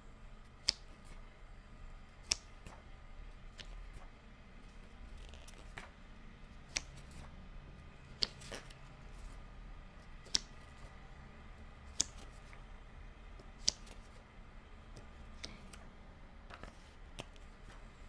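Pages of a softcover book turned by hand one spread at a time, each page giving a short, sharp snap as it flips over, about every one and a half to two seconds.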